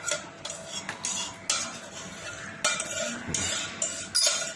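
A metal spoon stirring and scraping in a cooking pot, in irregular strokes with light clinks against the pot.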